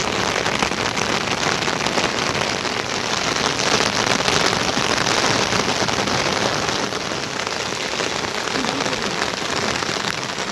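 Heavy rain falling steadily, a dense patter of drops hitting the ground and surfaces.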